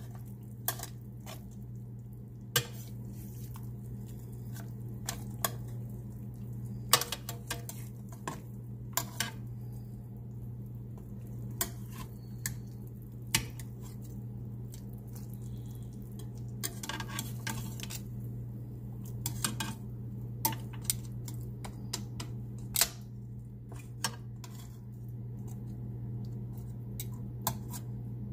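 Metal tongs clinking and scraping against a glass baking dish while beef short ribs are turned over: irregular sharp clicks, a few every couple of seconds, over a steady low hum.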